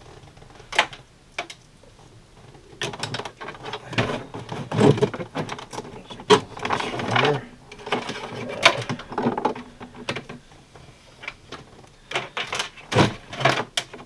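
Hand-handling noises from fitting a USB power port into a drilled hole in a plastic RV dash panel: irregular clicks, knocks and rustling of plastic and wiring, coming in clusters with short pauses.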